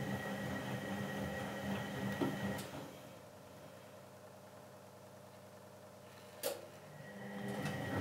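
Eudora Supernova 1002 front-loading washing machine tumbling a large load of coloured laundry during its wash cycle: the drum motor runs with a steady hum and a high whine, stops about three seconds in, and after a sharp click near the end the motor starts again and the drum resumes turning.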